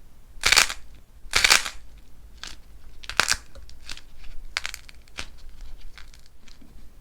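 Cracking clay being crushed by hand: a series of short, dry crunches, the two loudest about half a second and a second and a half in, followed by several softer crackles.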